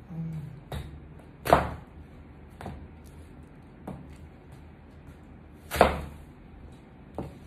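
Stiletto-heeled boots stomping on an apple on a tile floor: two loud crunching stomps about four seconds apart, with lighter heel clicks on the tile between them.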